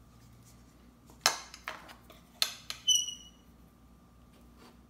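Metal spoon clinking and scraping against a mixing bowl while scooping up thick water putty paste: several sharp clicks over about a second and a half, the last leaving a short, high ring.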